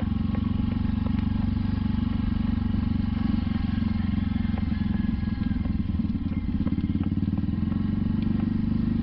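Small motor scooter engine running steadily, a low even drone with a fast pulse and no revving.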